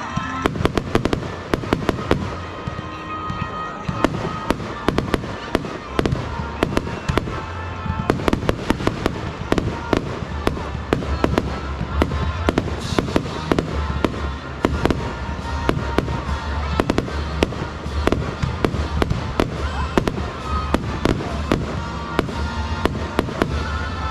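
Fireworks display going off continuously: many rapid, overlapping bangs and crackles over a steady low rumble.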